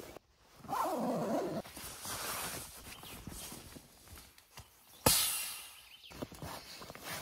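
Nylon fabric rustling as an inflatable sleeping pad is handled and moved about, with a sudden loud whoosh about five seconds in that fades over a second.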